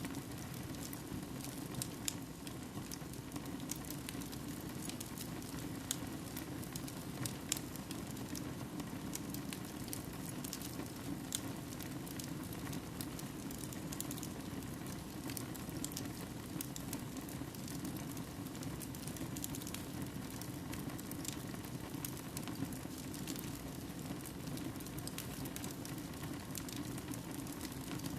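Firewood burning in a fireplace: a steady low hiss of flames with frequent irregular sharp crackles and pops from the burning logs.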